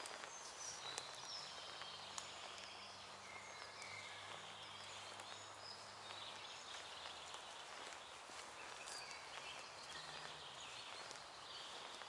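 Several songbirds chirping and singing, short high calls and warbles overlapping, with a few soft clicks of footsteps on a dirt forest path.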